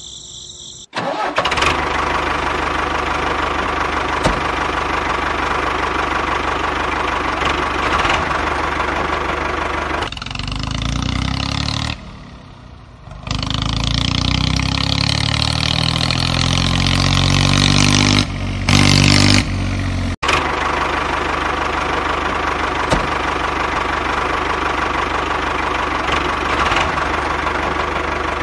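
Motor noise of a homemade mini tractor running steadily with a low hum, its pitch rising between about 13 and 18 seconds in as it speeds up. The sound breaks off and restarts abruptly several times.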